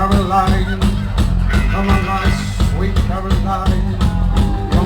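Rock band playing live at full volume: a sung voice over heavy, dense bass and steady drum hits, recorded on a phone.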